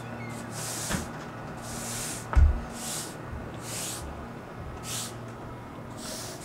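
Straw broom sweeping concrete: about six brushing strokes, roughly one a second, with one low thump about two and a half seconds in.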